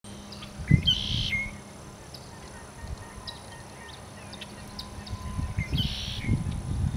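Wild birds calling in a marsh: two loud, harsh calls, one about a second in and one near the end, with scattered short chirps between them. Irregular low rumbling runs underneath.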